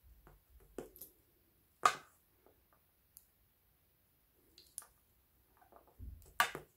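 Small hard-plastic clicks and taps from fingers working the clip and earbud of a wired Nokia stereo headset, with light rustle of its cable. The clicks come singly and are a few seconds apart; the sharpest comes about two seconds in, and a low bump and another sharp click come near the end.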